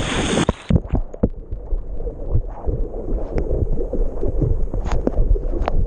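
A dog splashing into water, a loud splash that ends under a second in, then muffled sloshing and gurgling of water around the dog as it swims, with irregular low thumps, heard through a GoPro mounted on its back.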